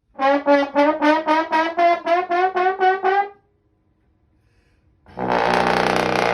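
A brass-like horn sound effect plays a quick run of about a dozen short notes, three or four a second. After a pause, a loud buzzing horn blast comes near the end.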